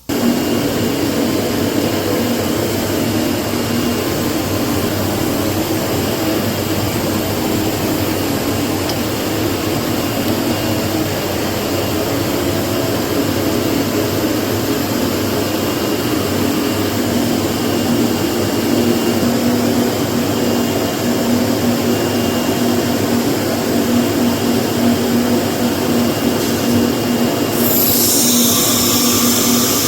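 CNC router starting a cut: the spindle and machine come on suddenly and run steadily with a constant hum. Near the end a brighter, hissier cutting noise joins in.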